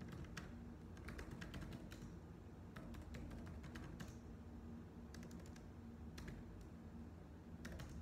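Computer keyboard being typed on in short, irregular runs of keystrokes with brief pauses between them, soft and clicky, over a faint steady low hum.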